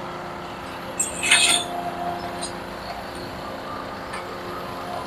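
Engine running steadily, with a short, sharp metallic clink about a second in and a few lighter ticks after it.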